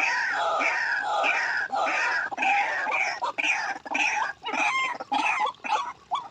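White-breasted waterhens giving their repeated croaking "kruak" calls, about two notes a second, the series thinning out and growing quieter near the end.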